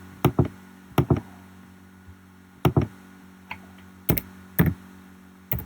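Sharp, short clicks from working a computer's controls, about ten in all, several coming in quick pairs.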